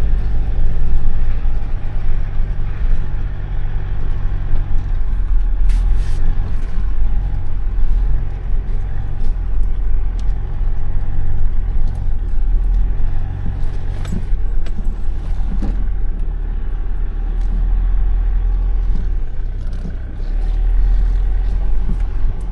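Excavator engine running steadily under load, its pitch and level shifting a little, with a few sharp knocks about six and fourteen seconds in.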